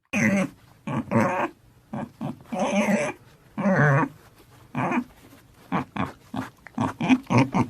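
Dog vocalising: a series of barks and growling calls, coming shorter and quicker in the second half.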